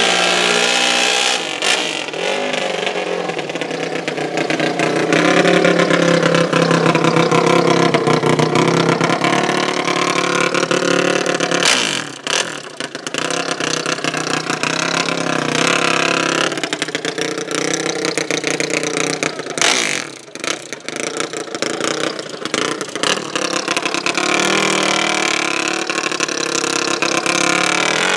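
High-revving drag-racing engines of a quad and motorcycles, running hard with the pitch sweeping up and down again and again. The sound dips briefly twice, about a third and about two-thirds of the way through.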